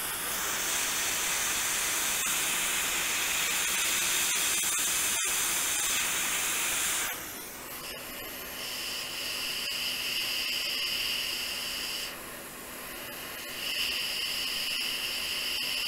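Hot air rework station blowing onto the circuit board to solder replacement resistors. A strong steady hiss for about seven seconds, then a quieter steady two-tone whistle that drops out briefly around twelve seconds and comes back.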